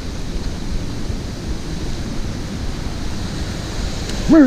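Steady rushing of flowing water. A voice calls out in a held tone near the end.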